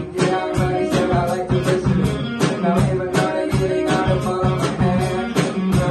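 A live rock band playing: guitars over a drum kit keeping a steady beat.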